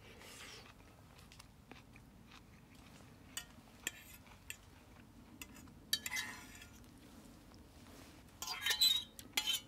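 Cutlery clinking and scraping on a plate while someone eats, with chewing. There are a few sharp clicks, and a louder run of scraping and clinking near the end.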